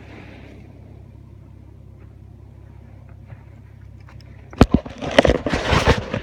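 A steady low rumble, then about four and a half seconds in, strong gusts of wind buffet the microphone in loud, irregular blasts with crackling spikes.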